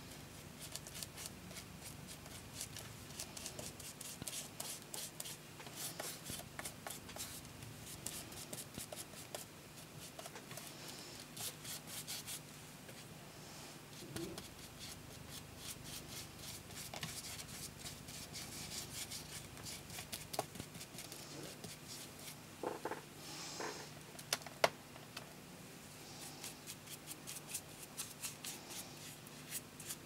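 Hands rustling and rubbing paper, with scattered light clicks and taps, over a faint steady hum.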